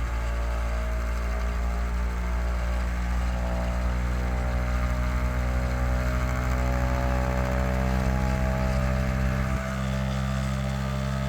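Small brushless DC motor spinning a KidWind GenX axial-flux alternator's magnet rotor at high speed, free-running with no load, a steady hum with a stack of whining tones. It runs fast because the magnet rotor sits pulled back from the coils; the deepest part of the hum drops a step near the end.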